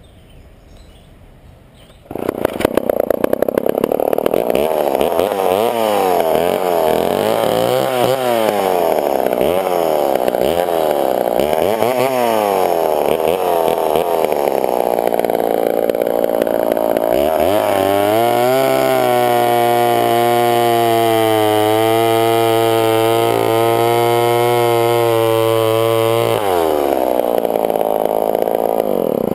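Two-stroke gas chainsaw engine comes in suddenly about two seconds in and is revved up and down repeatedly. It then settles into a steady, lower note as it cuts through a log, rises in pitch as the cut finishes, and stops at the end.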